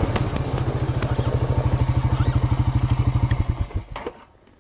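Four-wheeler (ATV) engine running as it is ridden, with a rapid, even low pulsing from the exhaust. The engine sound dies away about four seconds in.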